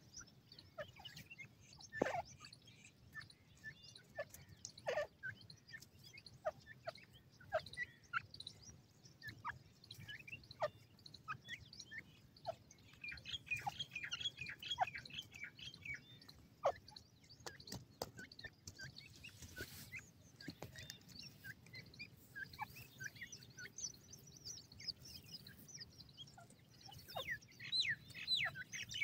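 Grey francolins, adults and a young bird, calling softly with short chirps that slide downward, scattered throughout. Quicker runs of high chirps come about halfway through and again near the end.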